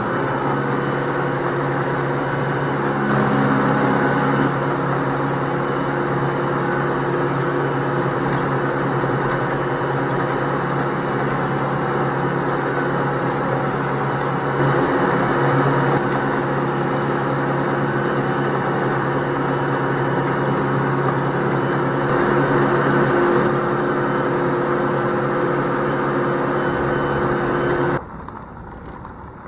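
Farm tractor's diesel engine running steadily at working speed. Its steady hum cuts off abruptly about a second before the end.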